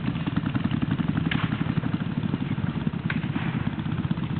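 An engine running steadily with a fast low throb, with two short sharp clinks, about a second in and near the end.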